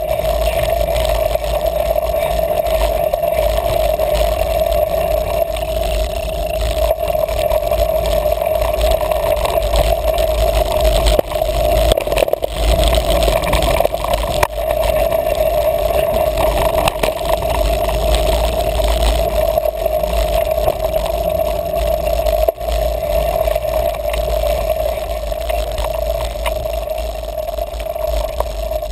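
Mountain bike riding over a dirt singletrack: continuous tyre, chain and frame rattle on rough ground, with heavy wind rumble on the microphone and a steady drone underneath.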